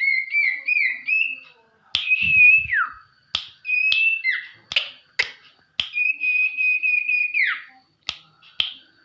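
A sirtu songbird singing in a white-rumped shama style: clear whistled notes, sharp snapping clicks, and held, wavering high notes that end in quick downward slides.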